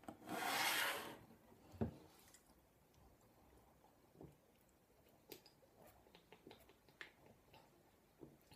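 A loud hissing rush for about the first second and a thump near two seconds in, then faint swallowing and small clicks of someone gulping cola from a bottle.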